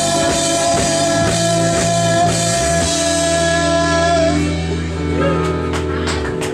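Live rock band with guitars, vocals and drum kit playing, a held sung or guitar note over chords. From about the middle a long low chord is held and rings out, with drum hits near the end as the song closes.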